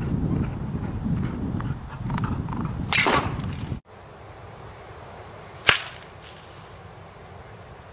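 Low wind rumble on the microphone with a brief swish about three seconds in; after a sudden drop to a quieter background, one sharp crack of a baseball bat hitting a pitched ball.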